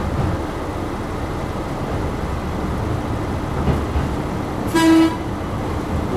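A diesel railcar's horn gives one short blast about five seconds in, over the steady rumble of the railcar running along the line.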